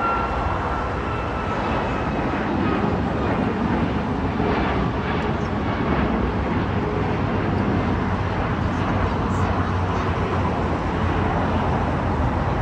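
Twin-engine jet airliner climbing out after takeoff: a steady roar from its engines, with a faint high whine that slowly falls and fades over the first few seconds.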